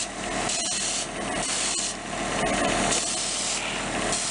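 Paint spraying in several short hissing bursts over a steady low hum, as coats of paint go onto a small diecast car body.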